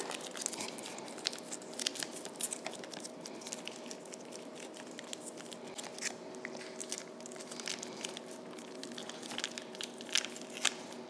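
Foil wrapper of a block of cream cheese crinkling and tearing as it is peeled open by hand, in scattered small crackles, over a faint steady hum.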